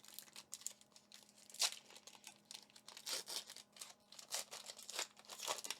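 Foil Pokémon TCG booster pack wrapper being torn open and crinkled by hand: a run of irregular short crackles and rips, the sharpest about a second and a half in.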